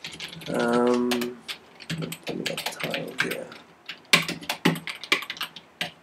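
Typing on a computer keyboard: a run of quick, irregular keystroke clicks that starts about two seconds in. Before it, near the start, a person's voice briefly holds one steady note, a hum or drawn-out 'mm'.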